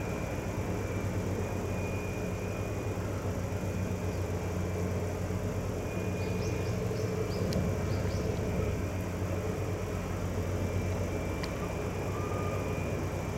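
Passenger ferry's diesel engines running steadily as it berths, a low hum with a faint high whine coming and going. A few faint high chirps about halfway through.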